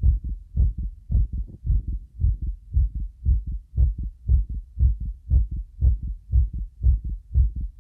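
Recorded heartbeat, edited for a stereo, 3D-like effect: a steady rhythm of low, dull thumps, about two a second.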